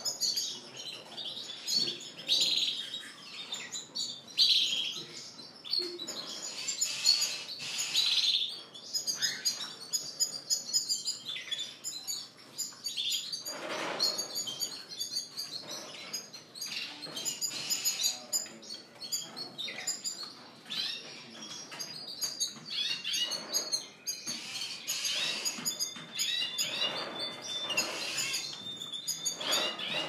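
A flock of caged male canaries singing together: rapid overlapping trills, chirps and warbles, with one long steady note held near the end.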